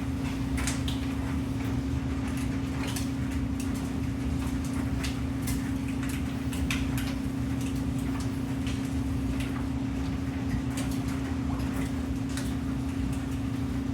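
Storm water backing up and welling out of a floor drain, with irregular small splashes and ticks over a steady low hum: a sewer backup during heavy rain, despite a device on the sewer lateral meant to prevent it.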